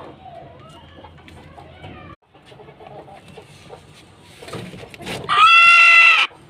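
A chicken gives one loud, pitched call lasting about a second, about five seconds in, after a few seconds of faint chirps.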